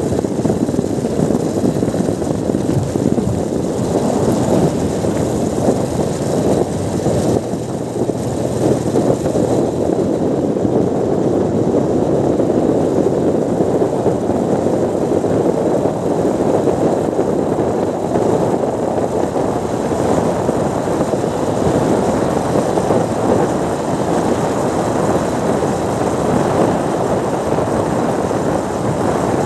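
Steady, loud vehicle rumble without a break, a dense low roar with no clear engine beat.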